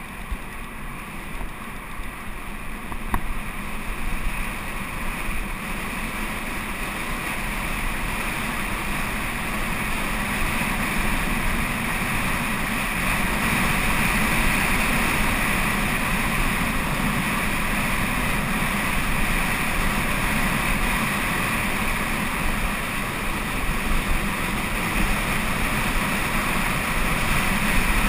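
Wind rushing over an action camera's microphone, mixed with tyres rolling on loose gravel during a fast descent. The rush grows louder over the first ten seconds or so as speed builds, then holds steady.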